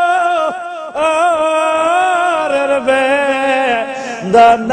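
A man singing long, wavering held notes of a Bengali devotional song in praise of the Prophet, his voice carried through microphones. Near the end he gives a short, loud rising note.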